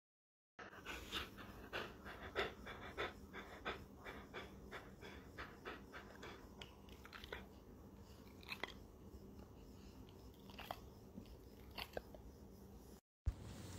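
A Rottweiler chewing and smacking its mouth: a faint run of quick wet clicks, about three a second, that thins to a few scattered clicks after several seconds.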